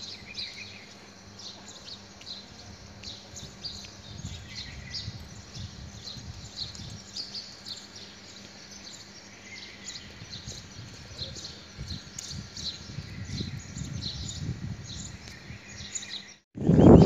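Small birds chirping again and again in short calls over a low outdoor rumble. Near the end the sound drops out for a moment and a loud rush of noise begins.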